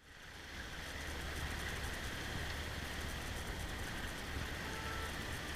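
Steady rush of strong wind and sea aboard a sailing yacht, with a low rumble under a broad hiss; it fades in over the first second.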